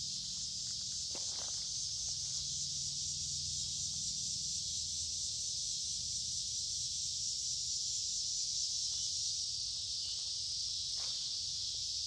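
Chorus of cicadas: a steady, unbroken high buzzing drone. A couple of faint footsteps on the wet creek bed, about a second in and near the end.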